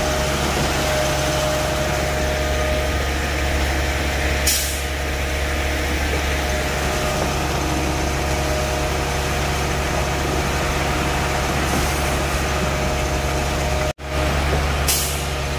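Heavy diesel engines of a concrete boom pump truck and a ready-mix truck running steadily under load while concrete is pumped through the boom. Brief bursts of hiss come about four seconds in and again near the end. The sound cuts out for an instant shortly before the end.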